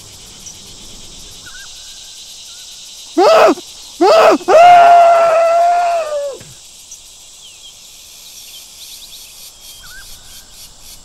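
A person screaming loudly: two short cries, then one long scream of about two seconds that drops away at the end. A steady high buzz of insects runs underneath.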